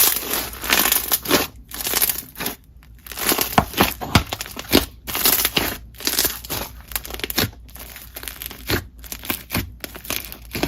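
Slime being squeezed and worked by hand: irregular crackling, squishing noises, broken by short pauses.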